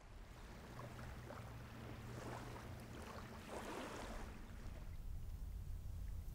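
Riverbank ambience: a steady, uneven low rumble of wind on the microphone with a hiss of moving water above it. The hiss swells about two seconds in and fades after four, while the low rumble grows a little stronger near the end.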